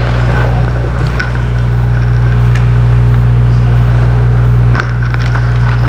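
A steady low hum with a faint high tone above it. It dips briefly near the end, and a few faint clicks sound through it.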